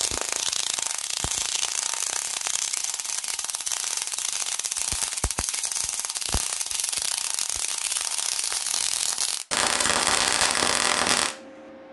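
MIG/MAG welding arc running a weld on thin steel plate over a copper backing bar, crackling and sizzling steadily with sharp pops. After a brief break about nine and a half seconds in, a smoother, even stretch of arc follows and cuts off sharply shortly before the end.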